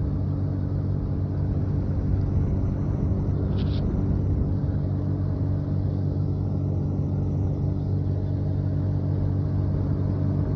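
Motorboat engine running steadily, heard from on board, an even low hum. A brief high chirp about three and a half seconds in.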